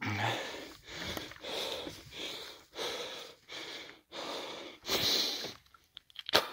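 A man panting hard while climbing over rocks, quick loud breaths in and out, more than one a second. A sharp click near the end.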